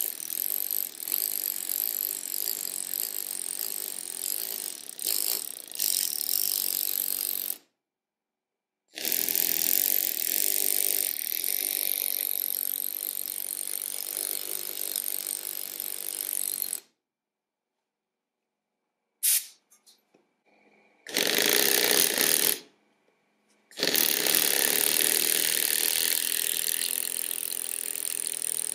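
F+K pneumatic lettering hammer driving a steel chisel into Irish blue limestone: a rapid, continuous chatter of air-driven blows, in spells of a few seconds with short stops between them.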